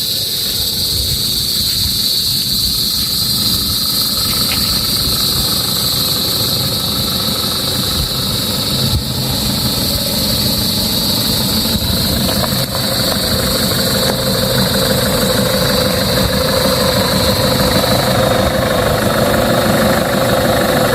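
Car engine and road rumble while driving slowly, steady, with a steady high-pitched hiss over it. A middle tone grows stronger from about halfway through.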